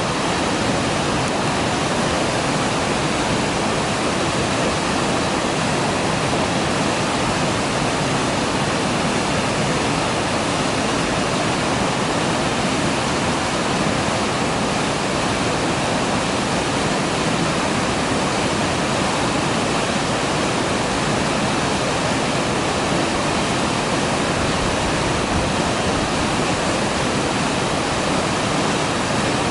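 Mountain waterfall falling steadily, a dense, even rush of water.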